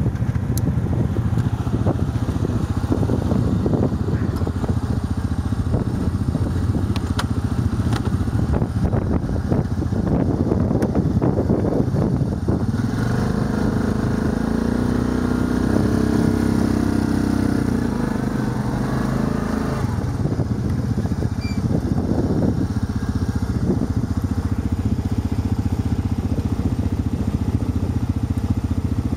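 Quad ATV engine idling steadily. About thirteen seconds in, a steady higher whine rises over it for about seven seconds as the quad's winch pulls the bogged machine out of the mud under load.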